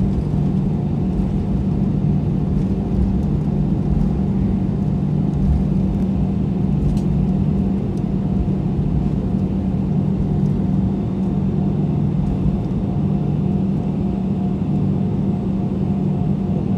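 Airbus A320 taxiing, heard inside the cabin: the engines at low taxi power make a steady hum with a low rumble under it.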